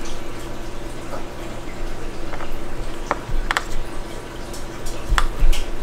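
A hand roller rolling out a stack of polymer clay on a work surface: a soft, steady rolling and squishing noise, with a few sharp clicks in the second half.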